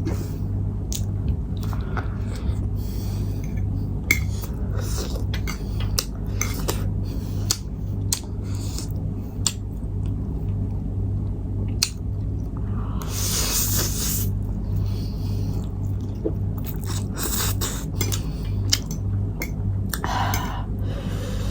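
Close-up eating sounds from spicy instant noodles and grilled chicken: wet chewing and smacking with small clicks. A longer slurping burst comes about halfway through and another near the end.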